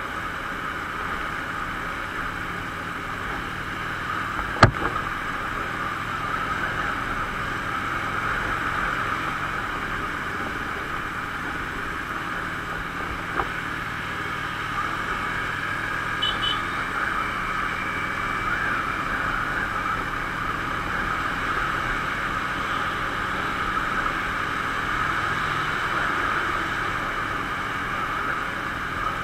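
Steady rush of wind and engine noise from a Harley-Davidson SuperLow's V-twin cruising in traffic, heard from the rider's camera. A single sharp knock comes about four and a half seconds in.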